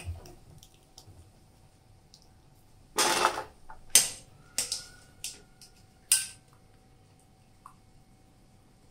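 Stainless steel kitchenware clattering as boiled potato fingers are tipped from a mesh strainer onto a steel tray: a short rattling scrape, then several metal knocks and clinks, one leaving a brief ringing tone.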